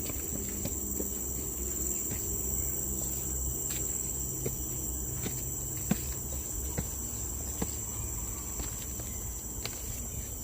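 Steady high-pitched insect chorus in tropical forest, one unbroken shrill note, with soft footsteps at walking pace along the trail.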